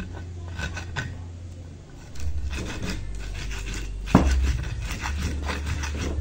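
Pestle grinding and crushing garlic, shallots, turmeric and peppercorns in a cobek mortar, in rubbing, scraping strokes, with a louder knock about four seconds in.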